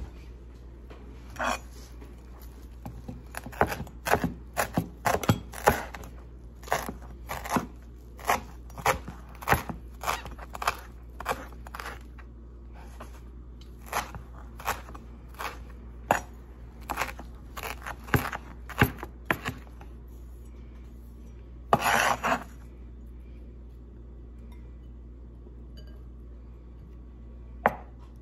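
Chinese-style cleaver chopping fresh coriander on a cutting board: a run of sharp, irregular knocks, about one to two a second. After a pause comes a brief scrape, and one last knock near the end.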